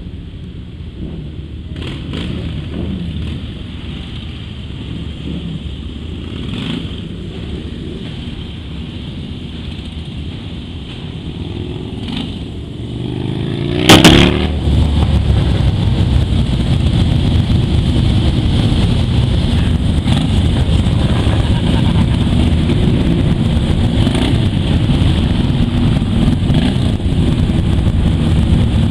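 Many Harley-Davidson motorcycles riding past in a slow column, their V-twin engines rumbling. About halfway through there is one sudden loud bang, after which the engine rumble is louder.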